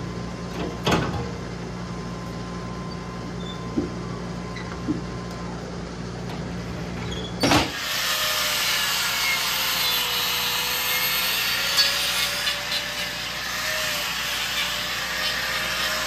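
Steady low machine hum with a few sharp knocks at the hoof-trimming chute. From about halfway, an angle grinder fitted with a hoof-trimming disc grinds a cow's hoof, a harsh hissing grind whose whine wavers in pitch as it bites.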